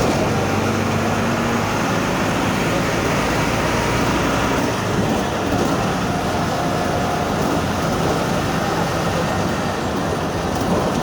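VW 17-230 OD bus with its MAN D0834 four-cylinder diesel and ZF 6S-1010 gearbox running under way, a steady running noise with thin whining tones that come and go. The gearbox growl is unusual because the gearbox has been reconditioned.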